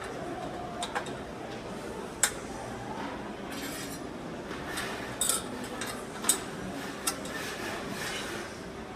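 Metal parts of a welded rack clinking and tapping against each other and the work surface, several short sharp clinks spread over a steady low background of the workshop.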